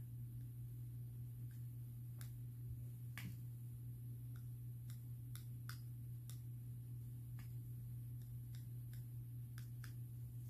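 Scattered faint ticks, irregularly spaced, as a dotting tool taps small glue dots onto a river rock, over a steady low hum.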